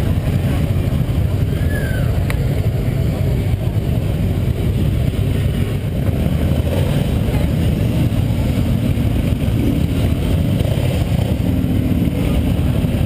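Several motorcycles, Harley-Davidson V-twin cruisers among them, riding past slowly one after another, their engines making a steady, low, continuous sound.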